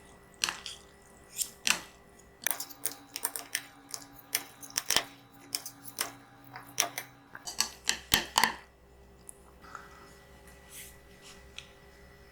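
Close-miked eating of spicy instant noodles: a run of sharp wet clicks and mouth smacks from chewing, which die down about nine seconds in, leaving only a faint hum and an odd soft click.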